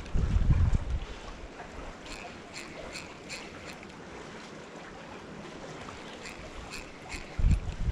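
Wind gusting on the microphone, heaviest in the first second and again near the end, over a steady wash of sea surf. Two runs of short, sharp ticks come through in the middle.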